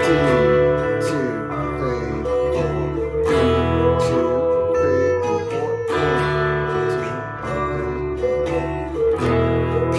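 Fender Telecaster electric guitar strumming a repeating chord progression of E, D, A and G, with a steady bass line and regular drum hits behind it.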